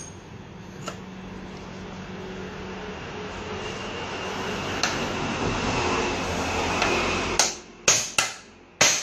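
A steady mechanical whirring that builds in loudness for about seven seconds, then cuts off. It is followed by three sharp metallic knocks in the last second and a half.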